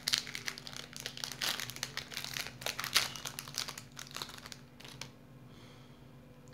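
Shiny plastic lollipop wrapper crinkling as it is torn and peeled open by hand, in a rapid run of crackles that dies down after about five seconds.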